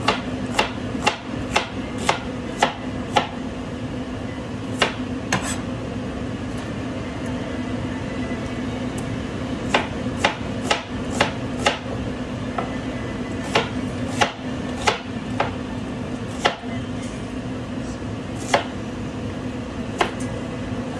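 Cleaver chopping a red onion on a plastic cutting board: sharp knocks of the blade on the board, about two a second in short runs with pauses between, over a steady low hum.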